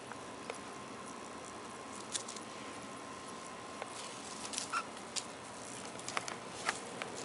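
Light, irregular pattering clicks and taps of kittens' paws and claws scampering on a concrete patio, coming more often in the second half, over a steady hiss. A faint, steady high tone in the background fades out about four seconds in.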